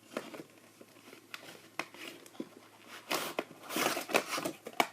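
Cardboard toy box being torn and handled, with crackling and rustling that grows busier in the second half.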